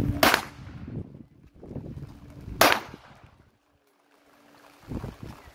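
Two pistol shots about two and a half seconds apart, each a sharp crack with a short echo tail.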